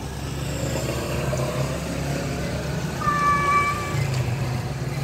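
Male domestic cat meowing once, a long level call about three seconds in, calling for a female. A low engine hum runs steadily underneath.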